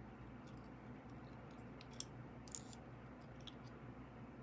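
A few faint clicks and ticks of small brass lock pins and tools being handled while a padlock's pin stack is taken apart, over a steady low room hum. The sharpest click comes about two and a half seconds in.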